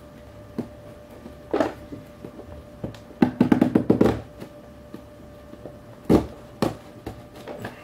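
Scattered knocks and taps of hands working at a cardboard LEGO advent calendar and the small parts inside, with two sharper knocks about six seconds in.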